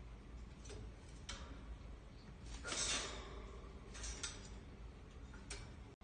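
Faint clicks and taps of a hornbill's feet and beak on the perches and wire of its cage as it hops about, with a louder rustle about three seconds in.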